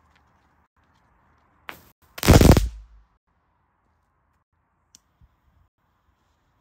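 Small F1 crackling firework going off: a single sharp pop, then half a second later a loud, rapid burst of crackles lasting under a second, followed by two faint stray pops.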